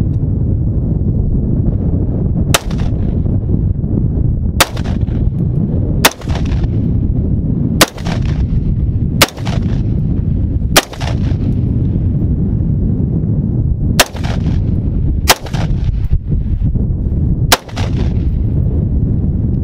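AR-15 rifle fired semi-automatic: nine single shots at uneven gaps of about one and a half to three seconds. A steady low wind rumble on the microphone runs underneath.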